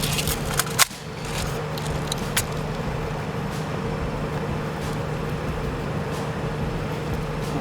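Car engine idling steadily, with a few clicks in the first second, the loudest a sharp click just under a second in.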